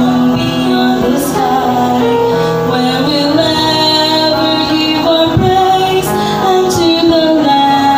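Vocal trio singing a gospel song over instrumental accompaniment, holding long notes that step from pitch to pitch.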